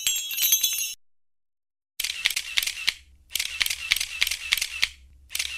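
A chiming ringtone tail cuts off about a second in, then a second of silence. Then come rapid camera shutter clicks, several a second, in bursts of about a second with short pauses, like paparazzi cameras firing.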